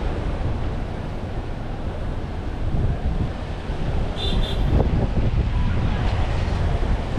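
Wind buffeting the microphone, a loud, steady low rumble. About four seconds in comes a brief high double chirp.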